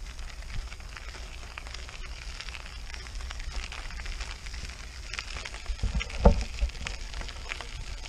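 Unicycle tyre rolling over a gravel track, giving a steady crackle of crunching stones, with wind rumbling on the microphone. A louder thump comes about six seconds in.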